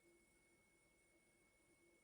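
Near silence: faint steady electrical hum and hiss of room tone.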